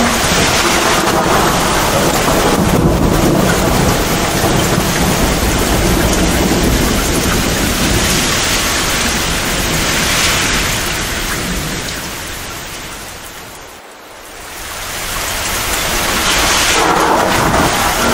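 Heavy, steady downpour of rain with low rumbles of thunder. About three-quarters of the way through, the rain briefly fades down and swells back up.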